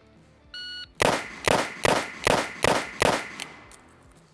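A shot timer's electronic start beep, then a Taurus 856 .38 Special revolver fired six times in quick succession, about four-tenths of a second between shots, emptying its six-round cylinder.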